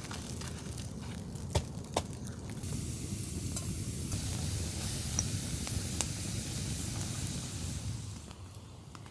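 Small campfire crackling and hissing, with a few sharp pops. Wind gusts over it, swelling about three seconds in and easing near the end.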